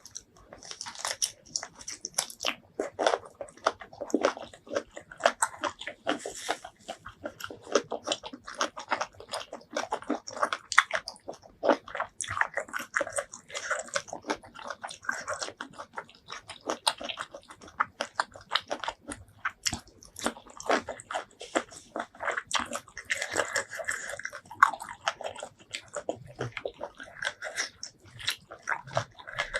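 A person chewing and biting seafood close to the microphone: a dense, irregular run of short sharp clicks and mouth sounds.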